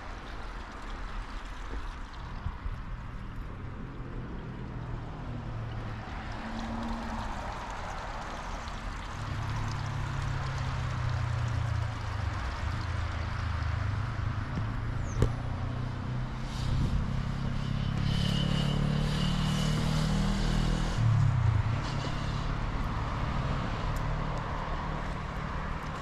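A road vehicle's engine passing nearby, its hum swelling over several seconds and dropping in pitch as it goes by, over steady outdoor background noise. One sharp click about midway.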